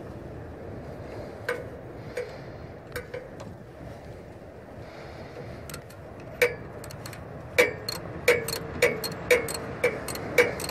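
Hand socket ratchet clicking as a bolt is worked: a few scattered clicks at first, then, from about halfway, a steady run of sharp ringing clicks about two a second.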